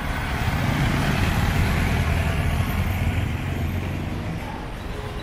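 Street traffic: a motor vehicle's engine rumbling close by, louder from about a second in and easing off toward the end, over the general hiss of the road.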